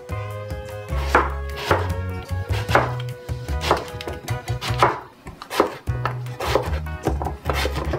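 Kitchen knife chopping through a courgette onto a plastic cutting board, one sharp cut about every second, over background music.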